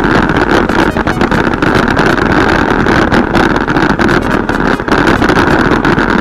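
Mountain bike riding fast down a rough dirt trail, heard from a camera mounted on the rider or bike: wind rushing over the microphone, with constant rattling and clatter as the tyres and frame hit bumps.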